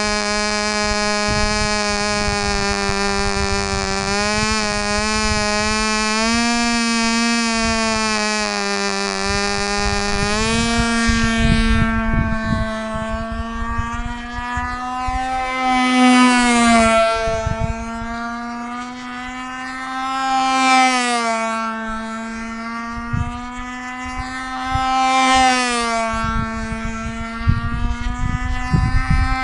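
O.S. LA .25 two-stroke glow engine on a control-line stunt model, running flat out with a high buzzing whine. It holds an even pitch for about the first ten seconds, then rises and falls in pitch and loudness about every four and a half seconds as the model circles the pilot lap after lap.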